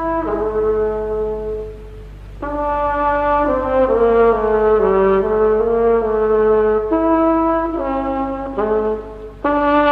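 Instrumental introduction of a recorded song: a slow melody of long held notes on brass. It drops away briefly about two seconds in and again just before the end.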